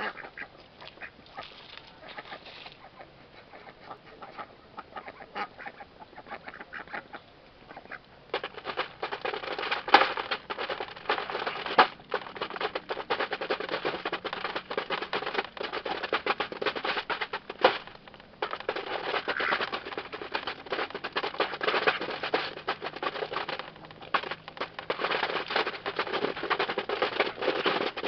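Domestic ducks feeding from a shallow tray of pellets, their bills pecking and clattering rapidly through the feed. The rapid clicking starts about eight seconds in and goes on with short breaks.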